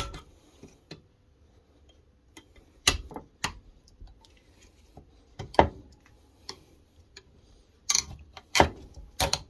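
Pliers and a steel circlip clicking and scraping against the wheel-bearing housing of a steering knuckle as the circlip is worked out of its groove. Scattered sharp metal clicks and taps, the loudest about three and five and a half seconds in, with several more close together near the end.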